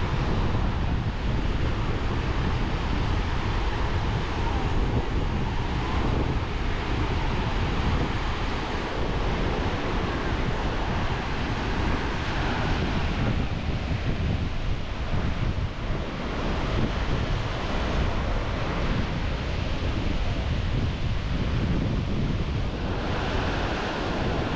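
Small Gulf of Mexico surf breaking and washing up a sandy beach, a steady wash of noise, with wind buffeting the microphone.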